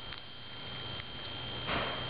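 White-tailed antelope squirrel eating sunflower seeds, with a few faint clicks of husks being cracked, then a short breathy rustle near the end as it comes right up against the microphone.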